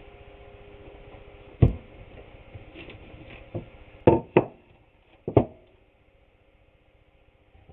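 Wooden boards knocked and set down on a countertop: one sharp knock, then a quick run of four more about two seconds later. A faint steady hum underneath stops about six seconds in.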